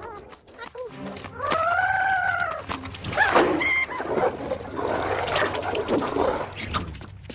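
A large dog snarling and growling in a fight, mixed with squealing cries. A drawn-out cry rises and falls about one and a half seconds in, and shorter yelps follow.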